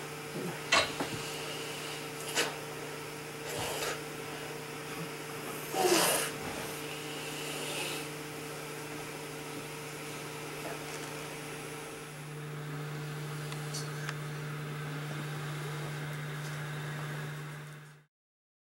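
Steady hum of a BiPAP ventilator blowing air through a nasal mask, with a few short soft sounds over it, the loudest about six seconds in. Around twelve seconds in the hum drops slightly in pitch and grows louder, then the sound cuts off just before the end.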